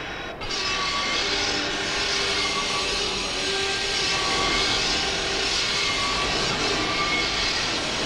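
A steady jet-like roar from a 1960s tokusatsu soundtrack, with faint held tones in it. It drops briefly about a third of a second in.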